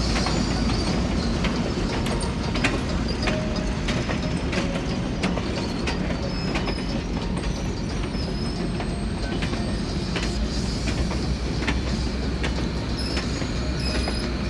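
Train rolling past with a steady rumble, its wheels clicking irregularly over the rail joints and giving short high squeals.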